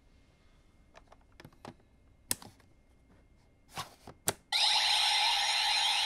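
Plastic clicks and knocks as an advent deck is slotted into a CSM V Buckle toy belt, ending in a sharp click as it seats; about four and a half seconds in, the buckle starts playing its loud electronic sound effect.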